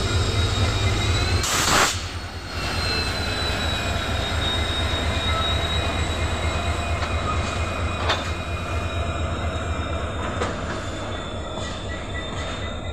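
Indian Railways diesel locomotive hauling a container freight train past at speed: a steady deep engine drone under a thin, high wheel squeal. A brief loud rushing hiss comes about a second and a half in, and a few sharp clanks of wheels over rail joints follow later.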